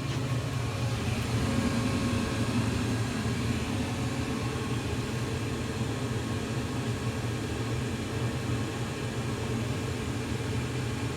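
Lennox gas furnace running in heat mode with its burners lit, a steady low rumble, before the circulating blower has started.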